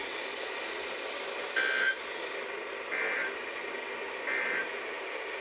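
NOAA Weather Radio Emergency Alert System end-of-message code: three short bursts of data tones, a little over a second apart, over steady radio hiss. They mark the end of the required weekly test message.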